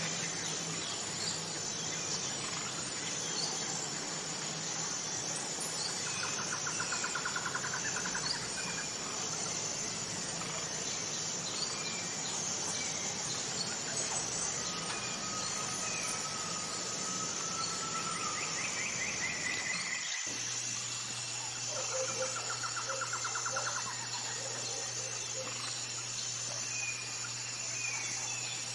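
Tropical forest ambience: a steady chorus of insects with a high pulsing note repeating about once a second, and a few short bird trills and a thin whistle over it. The background changes abruptly about twenty seconds in, with a low steady hum added.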